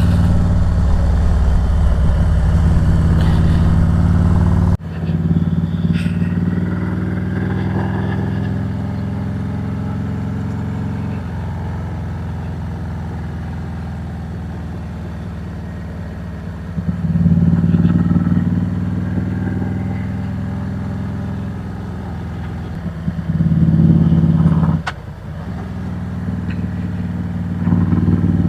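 Harley-Davidson Road Glide Special's V-twin engine running under way, rolling on and off the throttle through a run of curves. The low rumble drops suddenly about five seconds in, and the engine swells louder twice in the second half.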